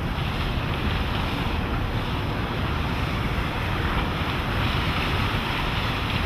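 Wind buffeting the microphone over rushing water and a motorboat running at speed, all steady.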